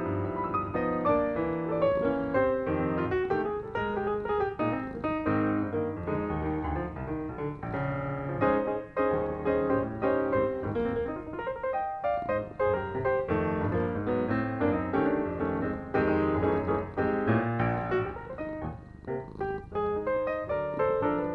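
Background piano music, a soft melody with chords.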